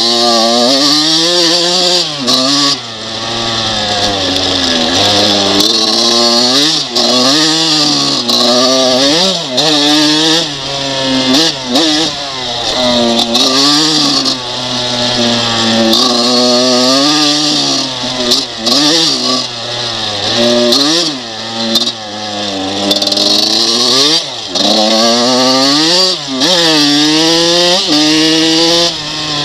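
Freshly rebuilt Kawasaki KX125 two-stroke single-cylinder dirt bike engine under way, revving up and dropping back over and over, its pitch rising and falling every second or two.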